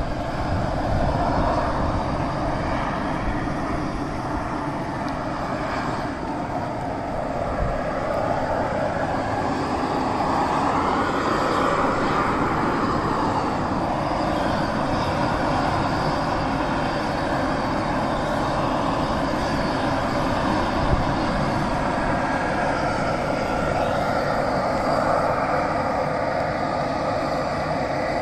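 Beryl Spring's steam vent and violently boiling pool roaring steadily: a continuous rushing hiss of escaping volcanic steam and agitated near-boiling water.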